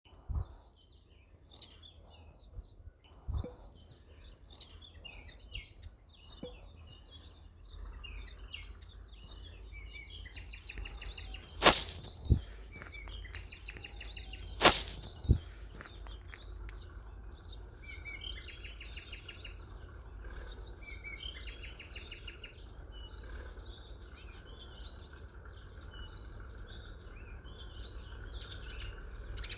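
Small birds chirping and calling on and off, with a few buzzy trills, over a steady low rumble. Several sharp knocks cut through, two loud ones near the middle.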